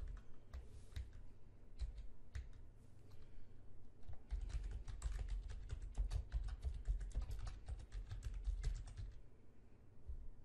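Typing on a computer keyboard: a few scattered keystrokes in the first seconds, then a fast, dense run of keystrokes from about four to nine seconds in.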